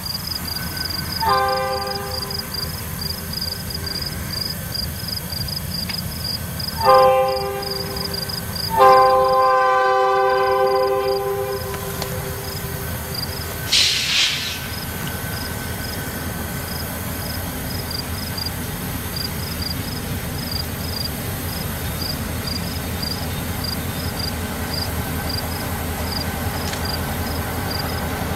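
Diesel freight locomotive's chime air horn sounding three blasts, a short one, then a longer one, then one held for about three seconds, over the steady rumble of the freight train. Later a short sharp noise, then only the low rumble of the train.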